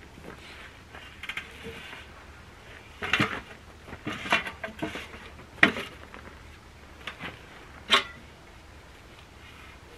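Handling noises of a heavy log being tipped and settled onto a metal log stand: scattered sharp knocks and clicks, with a cluster of quick clicks a little over a second in and the loudest knocks about five and a half and eight seconds in.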